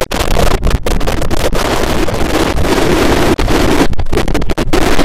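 A logo intro's audio put through heavy distortion effects, coming out as loud, harsh noise that fills the whole range, with a few brief cut-outs and a stuttering stretch near the end.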